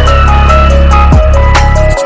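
Loud electronic background music with a heavy, steady bass, a synth melody and a deep kick drum.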